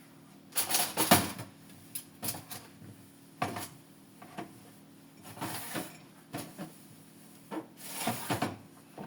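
Dishes and kitchenware being handled and set down: irregular clusters of knocks, clatters and short scrapes, with a low steady hum underneath.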